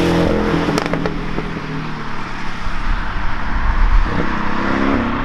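The Porsche 718 Cayman GTS's turbocharged 2.5-litre flat-four engine is heard from inside the cabin under hard driving, over loud road and wind rush. The engine note drops about a second in and climbs again near the end as the car accelerates.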